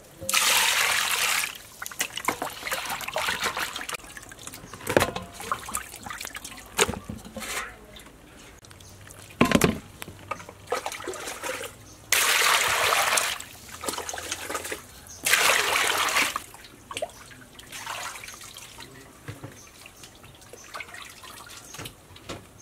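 Raw pig legs being scrubbed by hand in a steel bowl of water: water sloshing and trickling, with three louder rushes of splashing water about a second long, one near the start and two just past the middle, and a few knocks of the meat against the bowl.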